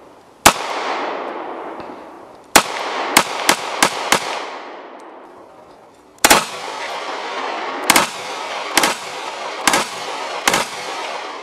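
Semi-automatic pistol fired about eleven times. There is a single shot, then a quick string of five, then five more spaced about a second apart. Each crack trails off in a long echo.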